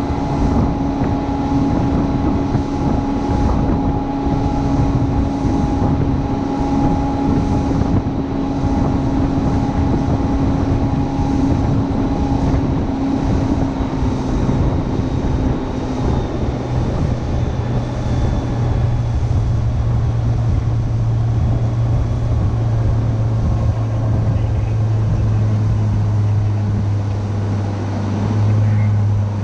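Rigid inflatable boat under way at speed: its engine running steadily, with wind rushing over the microphone and water hissing along the hull. About halfway through the engine's note changes, a deeper hum taking over from a higher tone.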